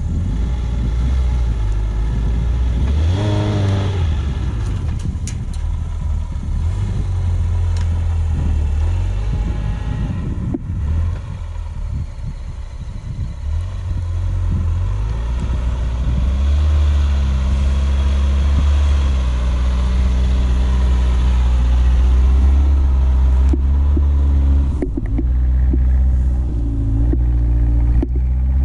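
Suzuki SJ410's engine revving and pulling under load while the 4x4 works through deep snow. It gives a quick rise and fall in revs about three seconds in, then holds a steadier, higher note for the second half, with a few brief knocks.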